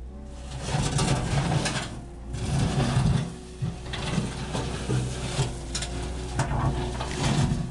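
Zettelmeyer 602 wheel loader's diesel engine working under load as the bucket digs into soil and roots, its note swelling and dropping in repeated pulses. Short scraping and cracking clatter comes from the bucket breaking through the ground.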